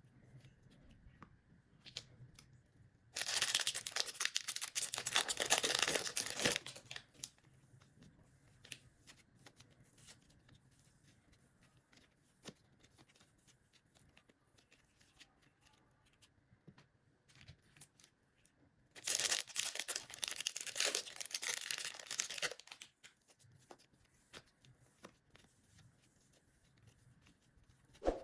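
Two stretches of crackly tearing noise, each about three seconds long, one a few seconds in and one about two-thirds of the way through, with scattered small clicks in between.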